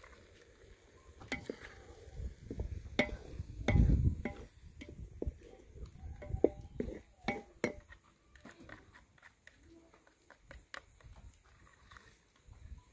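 Metal spoon clinking and scraping in a plastic bowl as a paste is stirred into cold water, along with a wooden spoon knocking in a metal cooking pot. It is a run of quick clicks and knocks, with a dull thump about four seconds in, thinning out after about eight seconds.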